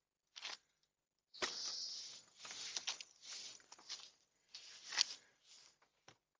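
Leafy branches rustling and crackling in a run of irregular bursts, with a few sharp snaps, the loudest about five seconds in.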